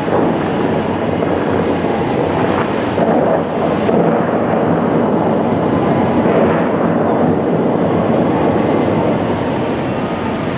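Steady rushing noise of a large fountain's water jets and falling spray, blended with city traffic, swelling a little in the middle.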